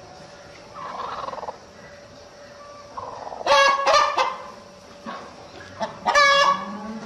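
Broody hen giving loud, harsh squawking calls in two bursts, about three and a half and six seconds in, as she is disturbed on the nest.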